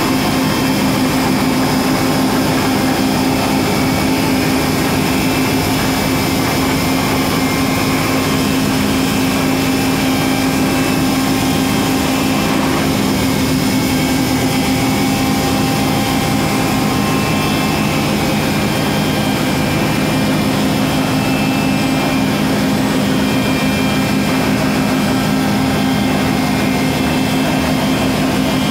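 Rail grinding machine working along the track, its grinding units running against the rail: a loud, steady machine noise with a strong low hum.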